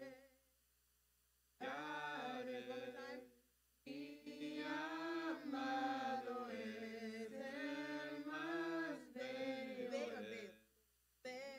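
Women's voices singing unaccompanied in a choir rehearsal, three sung phrases with short pauses between them.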